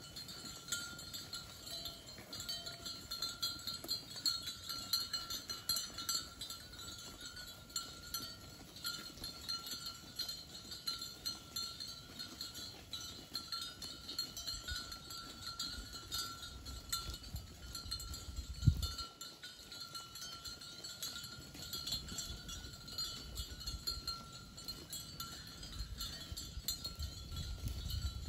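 Cowbells on a herd of grazing cattle ringing irregularly over a steady high tone. A single thump about two-thirds of the way through is the loudest sound.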